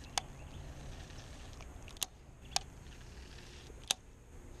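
Four short, sharp clicks, spread irregularly over a few seconds, from hands working a baitcasting reel and rod, over a faint steady outdoor hiss.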